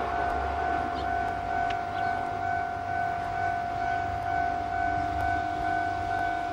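Steady high whine from a Kotoden Shido Line electric train's equipment, held on one pitch over a low rumble, with a fainter lower tone joining about five seconds in.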